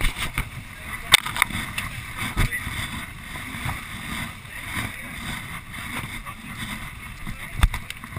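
Wind and rushing water around a boat moving through a choppy sea, with a few sharp knocks, the loudest a little over a second in and again near the end.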